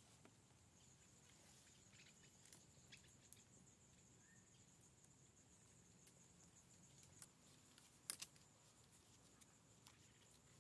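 Faint woodland ambience: a steady, high-pitched insect drone with scattered light clicks and ticks, two sharper clicks in quick succession about eight seconds in.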